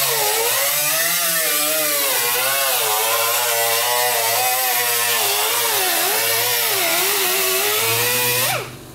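Pneumatic cutoff wheel cutting the sheet-steel fender lip of a truck's rear wheel well: a steady high whine over hiss, its pitch sagging and recovering as the wheel bites into the metal, cutting off abruptly near the end.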